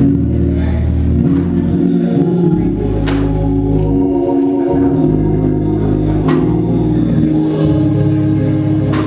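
Keyboard organ playing slow held chords over a bass line that moves from note to note, with a few sharp clicks.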